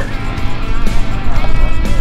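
Music playing over an airshow's public-address loudspeakers, with a steady low rumble underneath.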